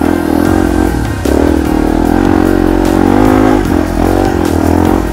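Small single-cylinder four-stroke dirt bike engine working on the throttle, its pitch rising and falling, with short drops about a second in and again near four seconds. Scattered sharp clicks and knocks over the engine.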